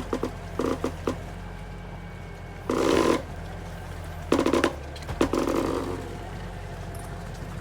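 Skid steer engine running steadily, with several short, louder surges of about half a second each as the machine is pushed under load while stuck in mud.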